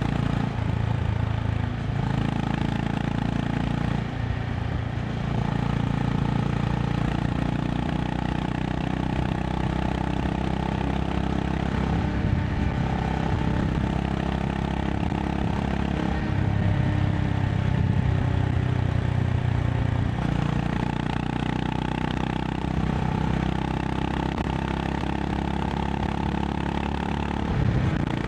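Honda CB350 RS's air-cooled single-cylinder engine running at highway speed, its note shifting up and down several times as the throttle changes, with wind and road noise underneath.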